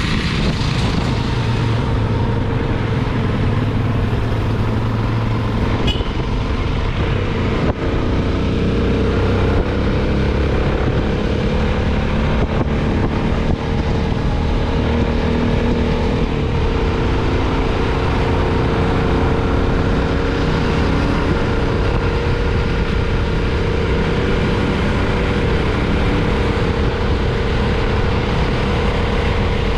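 Motor vehicle engine running steadily while on the move, its pitch drifting slightly up and down.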